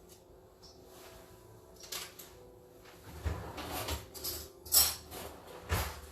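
Kitchen handling noises: a few clacks and scrapes of containers and utensils as yogurt is measured out, with the sharpest knocks near the end.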